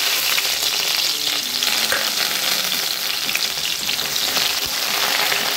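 Crushed garlic and chopped green chillies sizzling steadily in hot oil in a kadhai as a wooden spatula stirs them: the tempering (phodni) frying.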